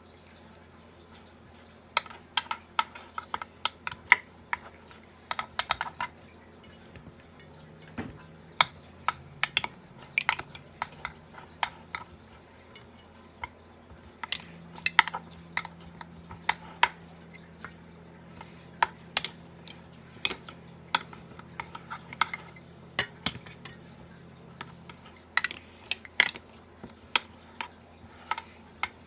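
Metal spoon clinking and scraping against a steel mixing bowl and a nonstick metal muffin tin in many short irregular knocks as ground-meat mix is scooped and pressed into the cups, over a faint steady low hum.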